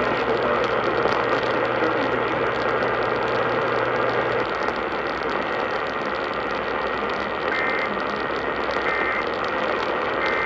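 Steady hiss of radio static from an off-air broadcast receiver between alert messages, with a low hum that stops about four seconds in. Three short, faint beeps come near the end.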